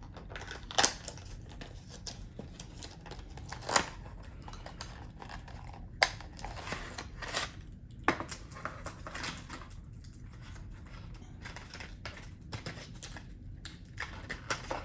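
Handling noise: a few sharp clicks and light knocks, spaced a few seconds apart, over soft rustling and a low steady hum.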